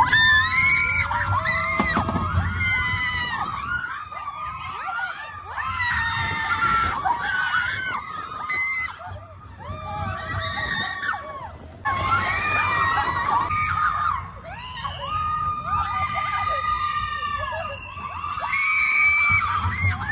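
Several roller-coaster riders screaming, long overlapping shrieks that rise and fall with brief lulls, over a low rumble.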